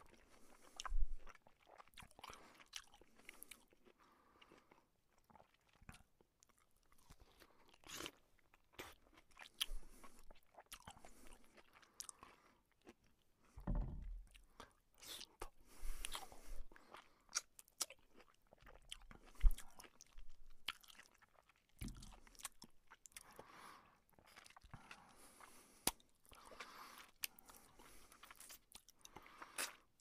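A person biting into and chewing a juicy piece of fruit: irregular wet crunches and mouth clicks, with the loudest bites about a second in and around the middle.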